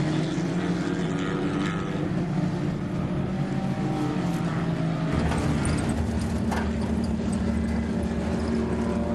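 Engines of small minicafetera race cars running on a dirt track. About five seconds in, the sound cuts to a steadier, lower engine drone heard from inside a vehicle.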